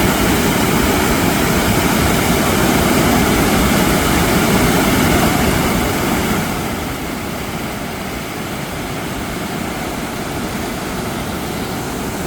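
Steady rushing of a mountain stream running high and fast after monsoon rain. It becomes somewhat quieter about six seconds in.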